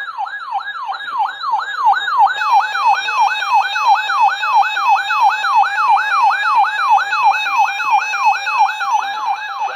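Electronic siren-style alert tone sounding for a severe thunderstorm warning broadcast: a fast, repeating falling sweep, about four a second. From about two seconds in, a second, higher stepping tone is layered on top.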